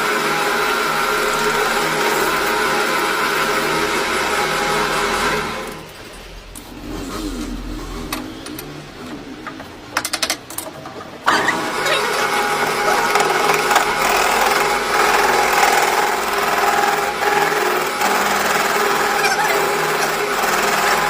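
A motor-driven shop machine running with a steady multi-tone hum. It winds down about five seconds in, and a few clicks follow in the quieter gap. About eleven seconds in it starts again abruptly and runs steadily.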